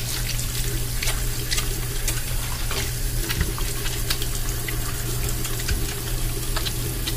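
A faucet running into a bathroom sink while wet hands rub and lather a bar of exfoliating soap, with many small wet clicks and splashes. A steady low hum sits underneath.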